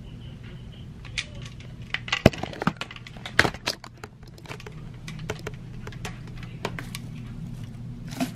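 Handling noise: a string of sharp plastic clicks and knocks as a ring light and its cable are carried and moved around, loudest two to three seconds in, over a steady low hum.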